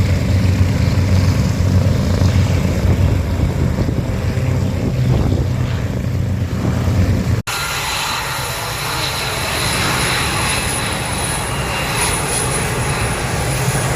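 Propeller-driven warbird aircraft engines running as the planes taxi: a loud, rough, pulsing piston-engine sound. About seven seconds in it cuts abruptly to another aircraft running more steadily, with a thin high whine above it.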